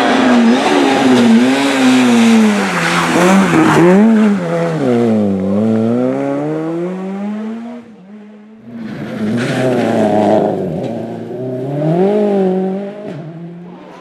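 Rally cars at full throttle on a tarmac stage: first a Peugeot 206 rally car's engine, its revs climbing and dropping repeatedly with gear changes and lifts as it passes. After a short break a little past halfway, another rally car's engine climbs and falls through the gears and fades away.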